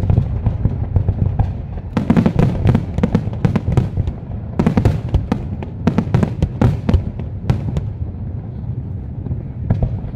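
Aerial fireworks shells bursting in rapid volleys: many sharp bangs and crackles, densest in clusters about two seconds and five seconds in, over a steady low rumble.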